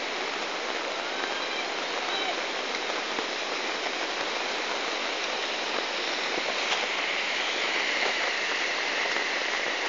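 Muddy storm floodwater rushing steadily past, with rain falling, as one even rushing noise.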